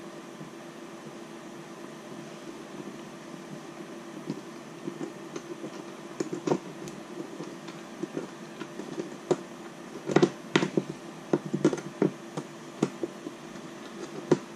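Small 3D-printed plastic gimbal parts being handled and fitted by hand: scattered clicks and taps that grow busier about ten seconds in, over a steady hum.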